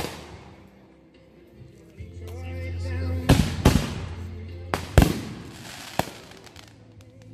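Aerial fireworks bursting with sharp bangs: one right at the start, then four more between about three and six seconds in, each trailing off in a crackling echo. Music plays underneath.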